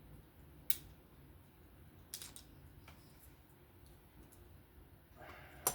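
A few sharp, isolated small clicks over a faint background as the small metal parts and driver of a folding knife are handled during disassembly, the loudest just before the end.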